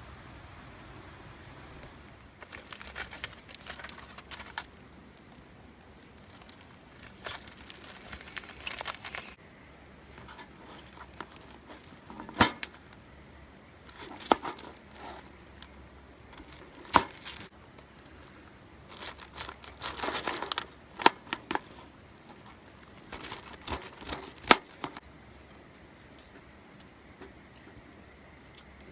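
Bursts of rustling and crinkling, with a few sharp clicks between them.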